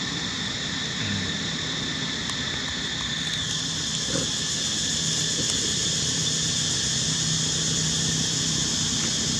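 Steady outdoor background drone: an even high-pitched whine that gets louder about three and a half seconds in, over a low steady engine-like hum.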